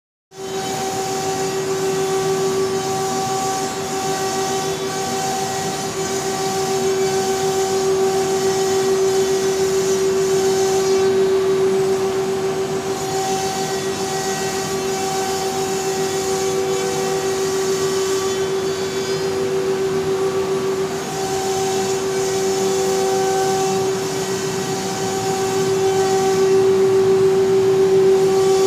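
Biesse Rover K CNC router running while machining wood, its spindle giving a steady pitched whine over an even rushing noise.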